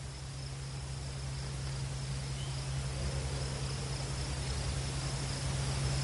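Insect chorus trilling steadily as one continuous high-pitched line, over a steady low hum that slowly grows louder.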